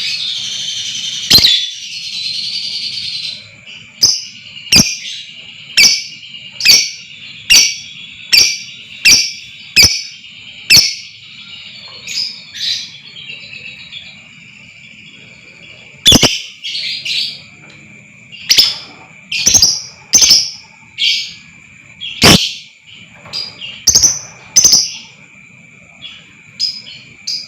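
Lovebird calling: a long, rapid chattering trill in the first few seconds, then loud sharp single chirps repeated a little more than once a second, with a lull midway. A steady high-pitched tone runs underneath.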